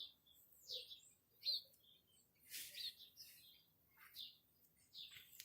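Faint birdsong: scattered short, high chirps, some sweeping down in pitch, about one every second.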